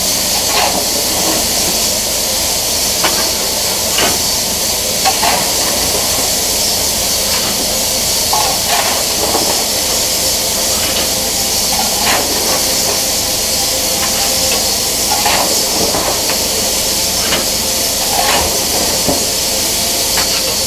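Steady loud hiss of steam and running noise inside the cab of the BR Standard Class 9F steam locomotive 92203 Black Prince, broken by short sharp knocks and clanks every one to three seconds at irregular spacing.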